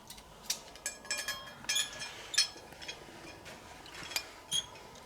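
Light metallic clicks and clinks of small metal parts being handled: the old motorcycle brake pads being picked up and measured for thickness. There are about a dozen separate clinks, some with a brief high ring, the loudest about halfway through.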